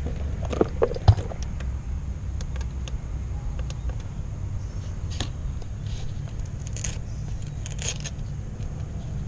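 Low, steady rumble of a car idling, heard from its rear cargo area, with a few sharp clicks and knocks of gear being handled, the loudest about a second in.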